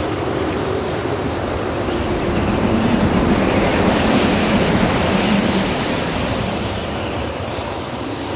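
Ocean wave sound effect: a steady rush of surf that swells to a peak midway and then eases off.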